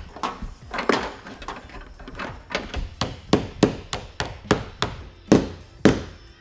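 A hand hammer tapping repeatedly: a run of sharp strikes, loose at first, then an even beat of about two to three a second, the loudest near the end.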